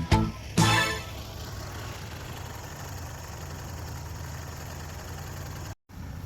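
An engine idling steadily, most likely the machine used for ploughing, after a snatch of music that stops within the first second; the sound cuts out briefly near the end.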